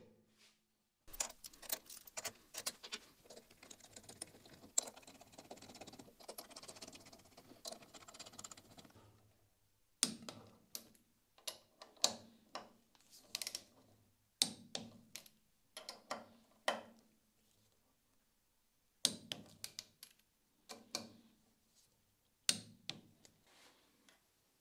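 Screws being tightened into a steel lathe bearing block with a hex-bit ratchet: short runs of light metallic clicks. During the first few seconds there is denser clicking and rattling as the parts and screws are handled.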